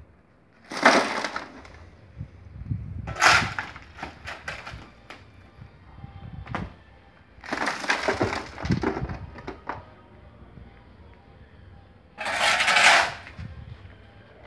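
A shovel scraping up broken concrete rubble and tipping it into a wheelbarrow, in four separate rattling scrapes.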